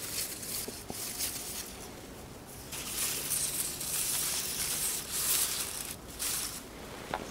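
Rustling hiss that swells and fades in uneven waves, the longest lasting about two seconds, with a faint click near the end.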